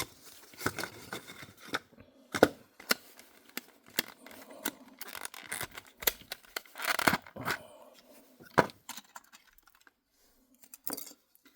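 Small plastic model accessories and their packaging being handled: scattered sharp clicks and taps, with short bouts of plastic rustling.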